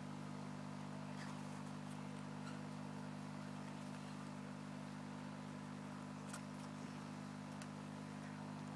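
Steady low mechanical or electrical hum, unchanging, with a few faint light clicks scattered through it.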